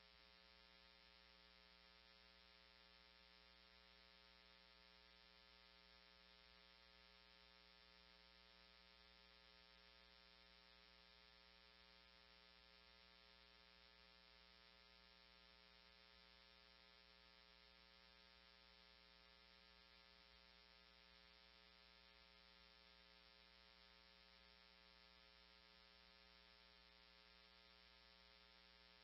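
Near silence, with only a faint steady electrical hum.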